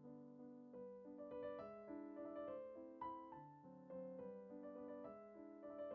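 Soft background music: gentle electric-piano notes in a flowing, repeating pattern.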